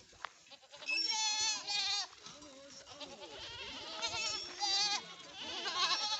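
Goats bleating: about five separate quivering calls, one after another.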